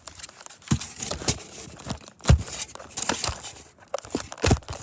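Scooter packaging being handled: irregular crinkling and tearing of wrapping, with a few dull knocks as the boxed parts are moved.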